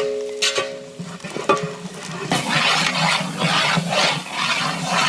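Background music with plucked strings fades out in the first second or so. From about two seconds in, onions fry in oil and are stirred in rhythmic scraping strokes, about two to three a second, over the sizzle.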